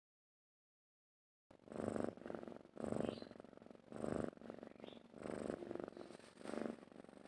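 Domestic cat purring, starting about a second and a half in. It swells and fades in a steady rhythm of about one breath a second.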